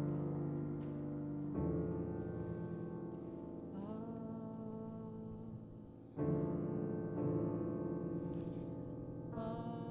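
Grand piano playing sustained chords in a contemporary piece. Chords are struck about one and a half seconds in, about six seconds in and near the end, each left ringing and fading, with a few tones sliding upward about four seconds in.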